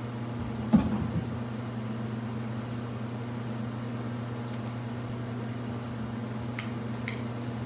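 Steady low electrical-sounding hum of the room and sound system, with one knock about a second in and a few faint clicks near the end.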